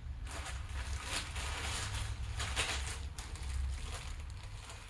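Light, scattered clicks and rustling as connecting-rod bolts and a rod cap are handled during engine assembly, over a steady low hum.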